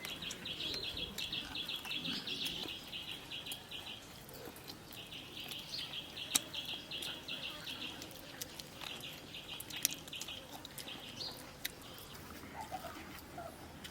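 Rapid high-pitched chirping, a fast even trill that comes in runs of a few seconds with short gaps, over a few scattered sharp clicks.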